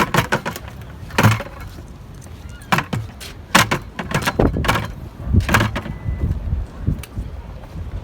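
A string of irregular sharp knocks and clunks, about ten over several seconds, over a low rumble.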